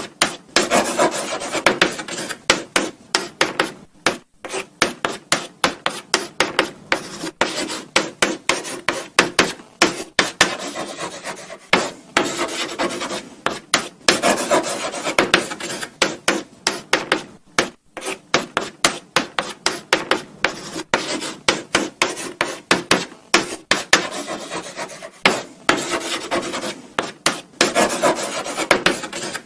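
Chalk writing on a blackboard: quick scratchy strokes several times a second, with short pauses between words, and sharp taps where the chalk meets the board.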